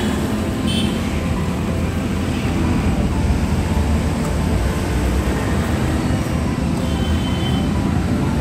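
Steady low rumble of outdoor background noise, rough and unbroken, with no distinct single event.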